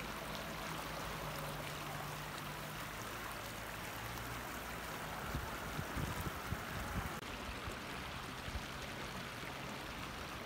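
Shallow river water running and rippling over stones, a steady rushing. A few low bumps come around six to seven seconds in.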